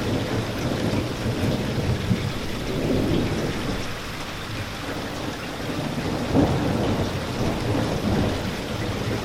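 Steady heavy rain with a low rolling rumble of thunder under it, swelling and easing, with a brief louder peak a little after six seconds in.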